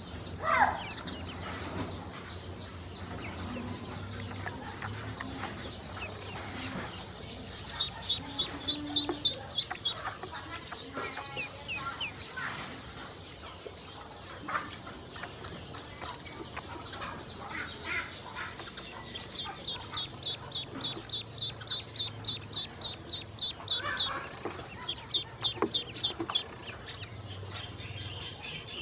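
Ducklings peeping in runs of short, high, evenly spaced peeps, about five a second, with scattered single calls between the runs. Light splashing and flapping as they paddle in shallow water.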